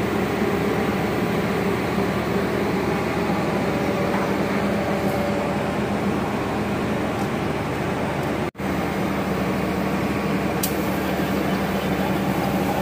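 A machine running steadily with a low, even hum; the sound drops out for a moment about eight and a half seconds in.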